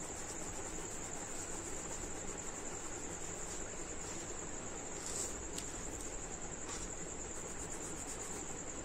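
Crickets trilling steadily, a continuous high-pitched pulsing chirr, with a few soft knocks about five to seven seconds in as bread is crumbled by hand in a steel bowl.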